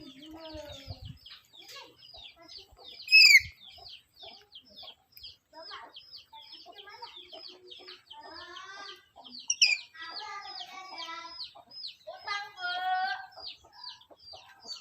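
Black-capped lory calling: two loud, harsh shrieks falling in pitch, about three seconds in and near ten seconds, and bursts of chattering calls in the second half, over a steady run of short high chirps about three to four a second.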